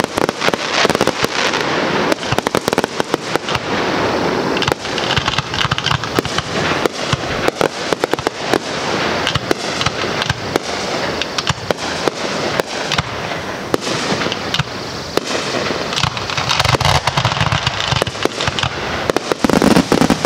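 Aerial fireworks display going off: a dense, unbroken run of rapid bangs and pops, many overlapping.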